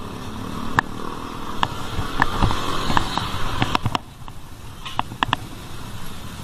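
City street traffic heard from a moving bicycle: car and motorcycle engines running close by, with irregular sharp clicks and knocks.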